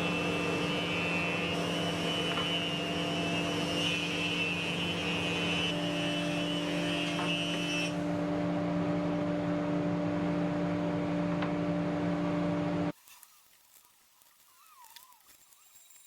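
A workshop machine running steadily with a constant hum and a higher whine that drops away about eight seconds in, then stops abruptly about thirteen seconds in, leaving near quiet.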